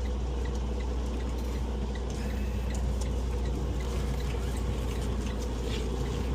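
Semi truck diesel engine running steadily at low speed, a constant low rumble, with a faint ticking about twice a second.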